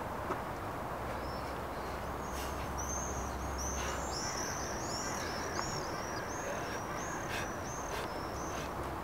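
Small birds chirping: a quick run of short, high chirps that starts a couple of seconds in and stops near the end, over steady outdoor background noise.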